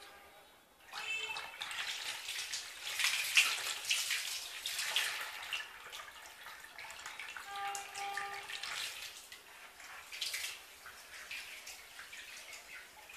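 Water churning and splashing in a plastic basin as a submerged 12 V micro brushless DC water pump runs and jets water beneath the surface. It starts about a second in and is busiest a few seconds later.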